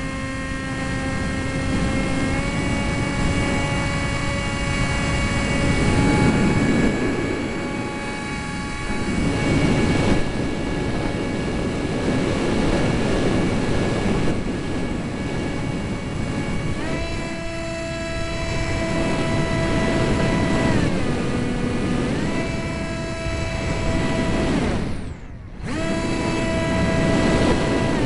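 Eurofighter Typhoon's twin EJ200 jet engines running with a steady whine that steps up or down in pitch a few times. Wind buffets the microphone throughout. The sound drops out briefly near the end.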